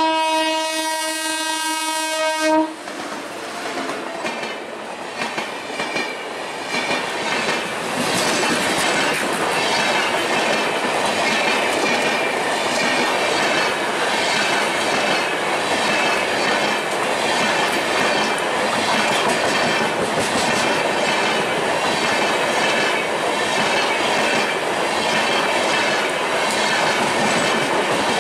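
Electric locomotive's horn sounding a steady multi-tone blast that cuts off about two and a half seconds in. Then the express train rolls slowly past at close range, its coach wheels clattering rhythmically over the rail joints.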